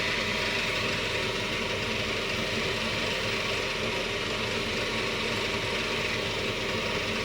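Cotton candy machine running steadily, its motor spinning the spinner head.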